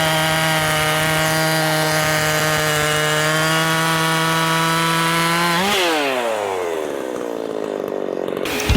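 Two-stroke chainsaw engine, a ported Makita 5600, running flat out at a steady high pitch. About two-thirds of the way in it is let off the throttle and the note falls away as the engine slows.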